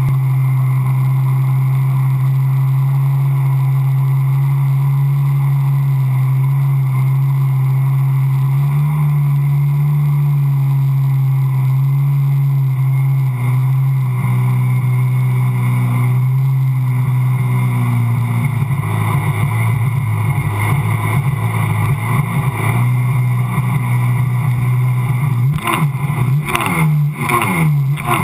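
Sea-Doo personal watercraft engine and jet drive running at a steady high speed, a constant drone. About two-thirds of the way through it turns choppier and uneven, and near the end the pitch swings up and down as the throttle changes.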